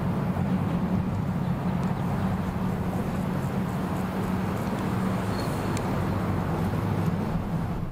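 Engine running steadily with a low, even hum that does not change.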